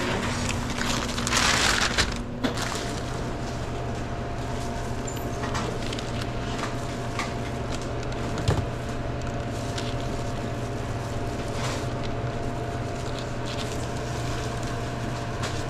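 Plastic bag rustling and crinkling for about a second near the start, then a steady mechanical hum with a few faint clicks and knocks of handling.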